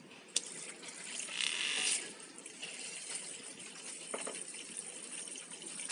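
Electric makeup brush cleaner spinning a brush in its bowl of cleaning water, the water swishing and splashing, loudest between about one and two seconds in. A sharp click comes near the start.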